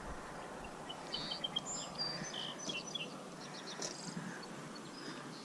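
Small birds chirping: scattered short, high notes, including a quick run of little peeps about a second in, over a steady outdoor background hiss.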